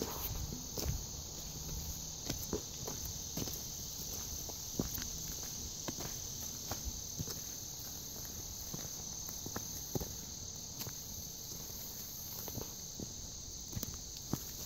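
A steady, high-pitched insect chorus, with irregular soft crackles of footsteps through leaf litter and undergrowth.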